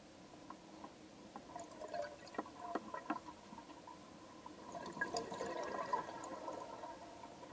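Scuba diver's exhaled bubbles heard underwater: two bursts of bubbling and crackling from the regulator's exhaust, a few seconds apart, over a faint steady hum.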